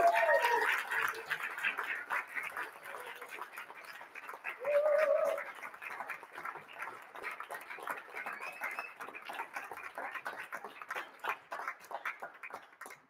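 Audience applauding, with a loud whoop at the start and another about five seconds in; the clapping gradually thins out toward the end.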